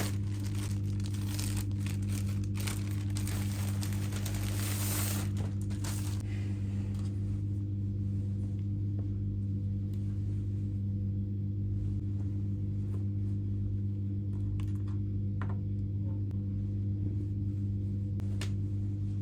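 Crinkling and rustling of something being handled, busiest in the first few seconds and again near the end, over a steady low electrical hum.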